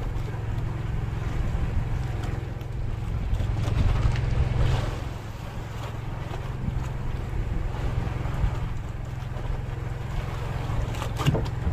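Motor of a fishing boat running steadily at sea, with wind on the microphone. One short knock near the end.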